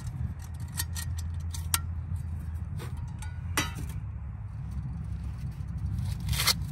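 Titanium camp cookware clinking: several light metal clinks and knocks as a bowl and pan are handled and set down on the stove, the loudest near the end. A steady low rumble runs underneath.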